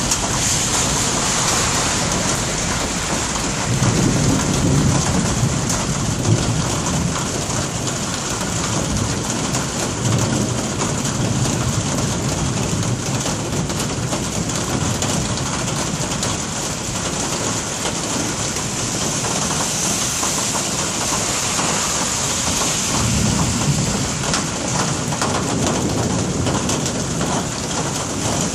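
Steady rain hiss with low rumbles of thunder, swelling about four seconds in, again around ten seconds, and near the end.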